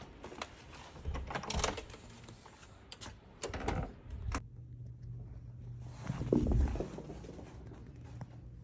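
Clicks, knocks and rattles of an apartment door being unlatched and opened, in three short bursts, over a low steady hum.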